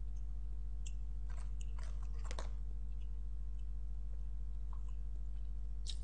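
A person chewing a soft filled pancake sweet, with scattered short chewing clicks that come thickest between about one and two and a half seconds in. A steady low hum runs underneath.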